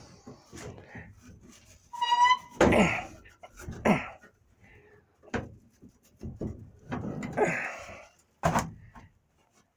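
Engine cover inside a 1959 Dodge P300 route van's cab being unlatched and lifted off: a series of irregular clunks and knocks, with a short squeak about two seconds in.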